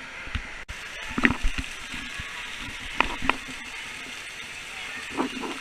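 Indoor water park ambience: a steady wash of running and splashing water, with a few short sharp knocks at intervals.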